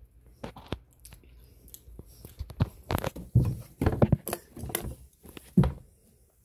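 Irregular knocks, clicks and rustles close to the microphone, with a cluster of louder ones in the middle and a sharp knock near the end, from a phone camera being handled and moved about.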